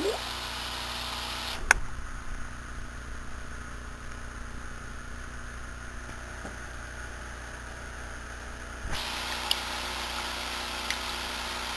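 Steady hum and hiss of running aquarium equipment: an air pump driving a bubble wall in the tank. The hiss fades for most of the middle and comes back near the end. There is a sharp click about two seconds in and a few faint ticks near the end.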